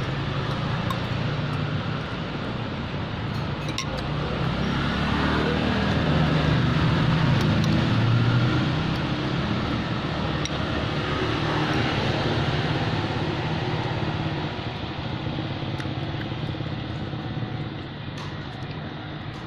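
Road traffic running steadily, with a vehicle engine swelling up in the middle and then fading away. A few light clinks of a metal spoon and fork against a ceramic bowl.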